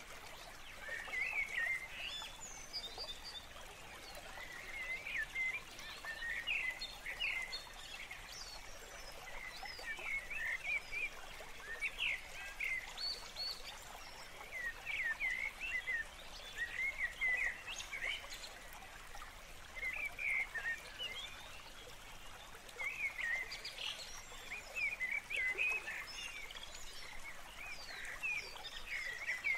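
Birds chirping: many short, quick calls in clusters every second or two, over a faint background hiss.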